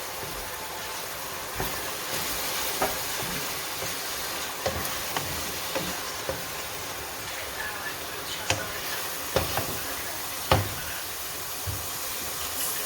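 Food frying in a pot with a steady sizzling hiss while a spoon stirs it, knocking against the pot every second or so, loudest about ten and a half seconds in.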